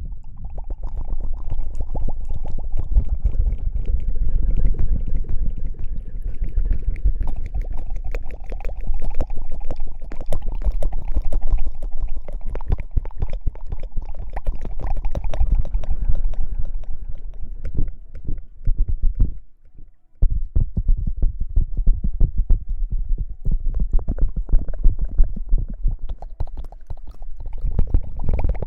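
Close-miked ASMR hair-washing sounds: wet scrubbing on the microphone with dense crackles. It stops briefly about two-thirds of the way through.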